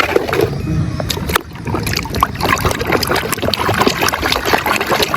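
Water splashing and trickling in quick, irregular small splashes as a muddy toy is washed.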